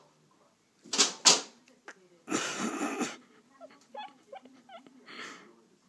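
Cat hissing and spitting: two sharp spits about a second in, then a longer hiss of nearly a second, and a shorter hiss near the end.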